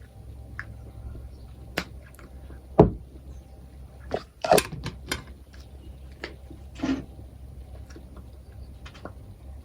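Makeup containers and tools being handled: scattered small clicks and knocks, the sharpest one a little under three seconds in and a cluster of them at about four and a half seconds.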